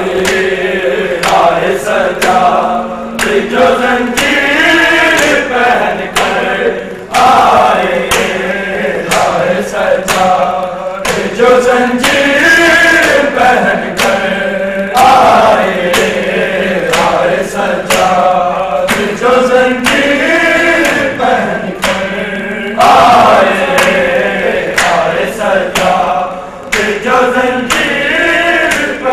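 A group of men chanting a noha, a Shia Muharram lament, in unison, kept in time by regular open-hand slaps on bare chests (matam) about once a second.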